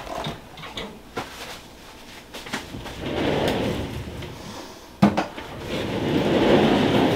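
Rustling and shuffling of a person shifting position on a chiropractic treatment table, with a few light clicks and one sharp knock about five seconds in.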